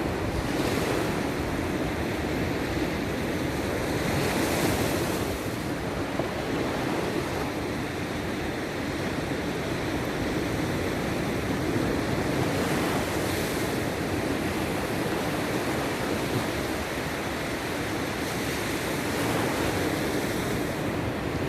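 Sea surf: waves washing onto the shore in a steady rush, swelling into a hiss every several seconds, loudest about four seconds in.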